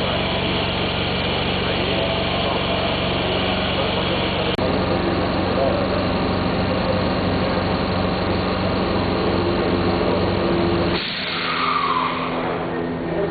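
Urban-train air compressor made by Isomec running steadily on a test bench, a deep, even hum. About eleven seconds in the lowest part of the hum cuts off suddenly while some higher tones carry on.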